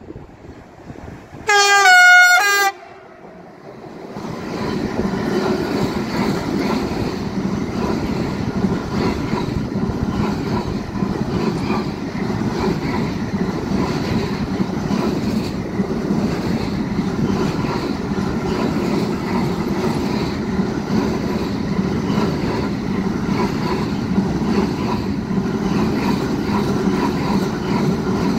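A freight train's locomotive sounds its horn once, a short, loud blast about a second and a half in. From about four seconds in comes the steady noise of a long container train's wheels running over the rails as the wagons pass close by.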